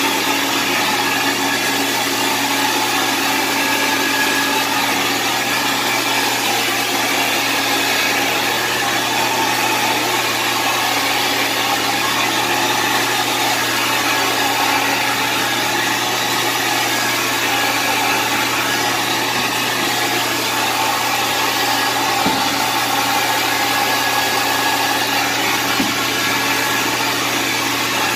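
Carpet-cleaning machine running steadily with a constant motor hum and hiss, with two faint clicks in the second half.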